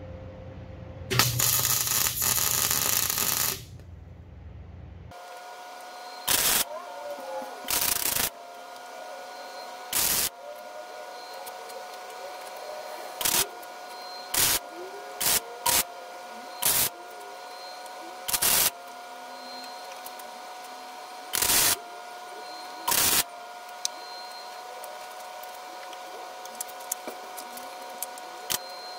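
Welder tack-welding the steel truss pieces onto a Dana 60 axle housing: one arc run of about two and a half seconds near the start, then about a dozen short tacks, each under a second, at uneven intervals. A steady hum runs under them.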